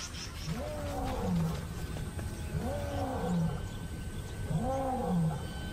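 Male lion roaring: three deep calls about two seconds apart, each rising then falling in pitch. It is a pride male's territorial roar, proclaiming ownership of his lioness and ground.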